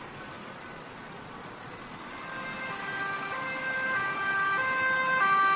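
Police car's two-tone siren alternating between a high and a low note, growing louder as it approaches, over steady motorway traffic noise. It is faint at first and becomes loud from about two seconds in.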